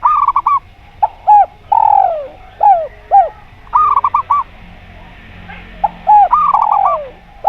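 Zebra doves (perkutut) cooing in repeated phrases. Each phrase is a quick run of high bubbling coos, then short hooked coos and a long coo that falls in pitch, with phrases sometimes overlapping.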